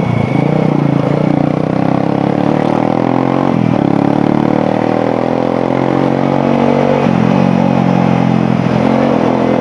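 150 cc motorcycle engine running under acceleration while riding, its note climbing steadily with short dips in pitch about a third and two-thirds of the way in, as at gear changes.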